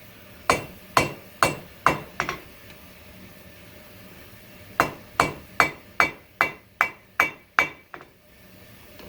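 Hand hammer blows on hot coil-spring steel on an anvil, each with a short metallic ring: five blows, a pause, then a steady run of about eight more at roughly two and a half a second.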